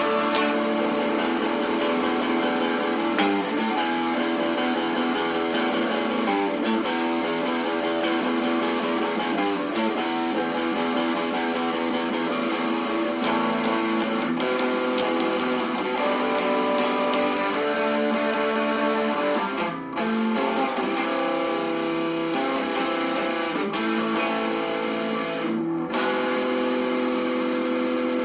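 Electric guitar strumming basic chords, changing chord about every three seconds, with a short break in the strumming about twenty seconds in.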